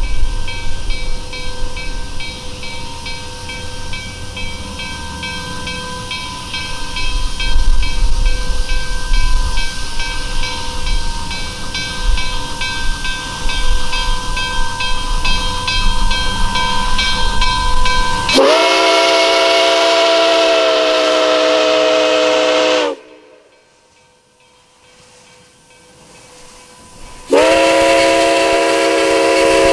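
Nickel Plate Road 765, a 2-8-4 Berkshire steam locomotive, runs past with a low rumble, hiss and regular ringing strokes. About 18 seconds in it sounds two long blasts of its chime whistle, several tones at once, with a sudden drop to quiet between them.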